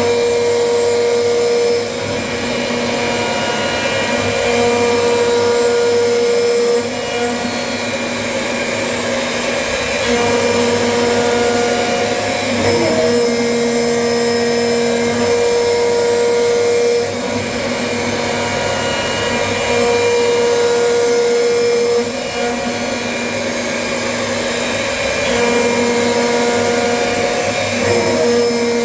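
CNC machine running: steady motor noise with a high whine that stops and starts every few seconds as the axes move.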